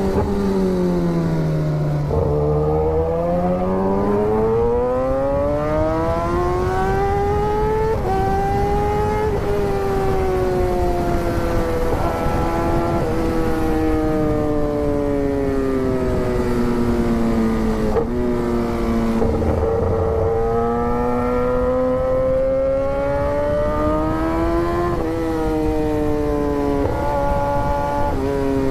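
Kawasaki superbike's inline-four engine riding along, its pitch rising and falling smoothly with the throttle and jumping abruptly at a few gear changes.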